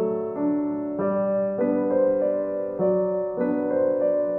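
Background music: piano or electric piano playing a slow, gentle melody, a new note or chord struck about every half second.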